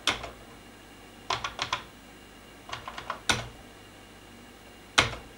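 Computer keyboard keys being pressed: a single click, a quick run of four, three more in quick succession, then two louder single strokes, the last and loudest near the end.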